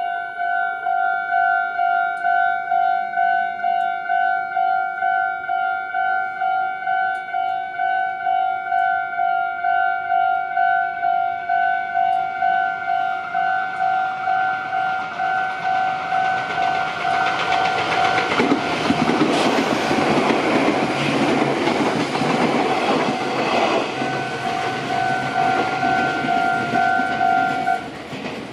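Japanese railway level-crossing warning bell ringing in steady repeated electronic clangs as a Meitetsu Inuyama Line train approaches and passes. The rush of wheels on rail swells through the second half, peaks for several seconds, then fades. The bell cuts off shortly before the end.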